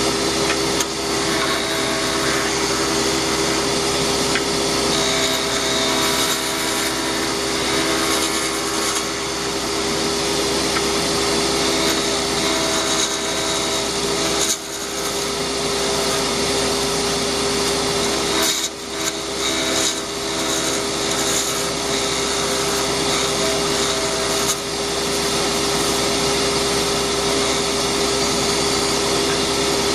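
Delta wood lathe running with a steady motor hum while a tool scrapes and cuts a spinning pen blank, a continuous rasping noise. The cutting noise briefly drops out twice, about halfway and about two-thirds in, as the tool comes off the work.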